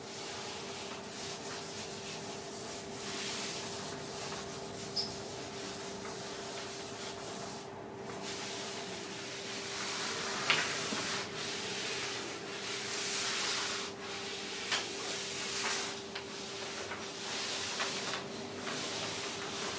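Charcoal and hands rubbing and scraping over a large sheet of paper, with the paper rustling as a body shifts across it. The hiss swells and fades, with a few sharp taps, the loudest about ten seconds in.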